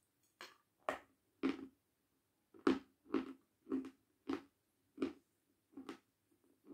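Close-up crunching as a hard, chalky white block is bitten and chewed: about ten sharp crunches, roughly one every half second.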